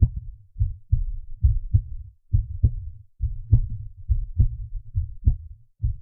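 A heartbeat: deep double thumps, lub-dub, repeating steadily a little faster than once a second.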